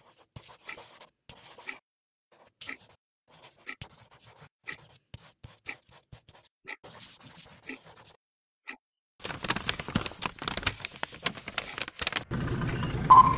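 A clock ticking about once a second while a pen scratches across paper. About nine seconds in, loud crackling of paper being folded takes over. Near the end a louder steady sound with a held tone comes in.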